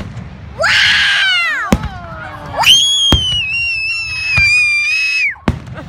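Whistling fireworks: one whistle falls in pitch, then a long, high, nearly steady whistle lasts about three seconds before dropping away at its end. Several sharp firework bangs go off among the whistles.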